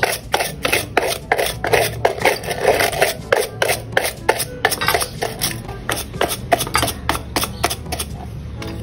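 Brass wire brush scrubbing a petrol-wetted Honda engine cover in quick strokes, about four a second, stripping old paint that paint remover has loosened. The strokes stop near the end.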